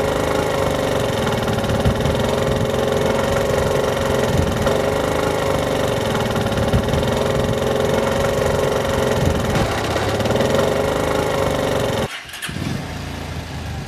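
Motorcycle engine running with a typical crankshaft big-end noise, the sign of a worn big-end bearing, damaged cage or crank pin, or lack of lubrication. It breaks off about twelve seconds in, leaving a quieter sound.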